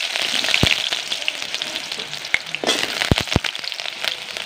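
Cubed potatoes sizzling and crackling in hot oil in an iron kadai, with a few knocks of a metal spatula against the pan.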